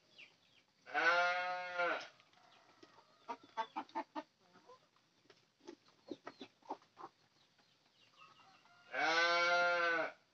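Village chickens clucking in short, quiet calls as they feed. Two loud, drawn-out animal calls of about a second each stand out, one about a second in and one near the end.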